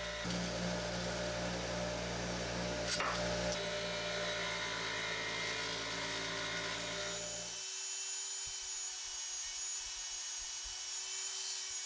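Bench grinder motor running steadily with a small steel part held against its spinning wheel, with a sharp click about 3 s in. About two-thirds of the way through it gives way to the thin, high whine of a Dremel rotary tool spinning a small steel wire wheel against rusty iron to clear rust from hard-to-reach spots.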